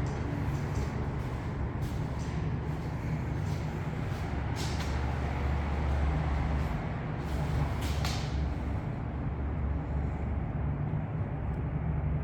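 Steady low machine rumble, with a few brief hissing bursts about two, four and a half, and eight seconds in.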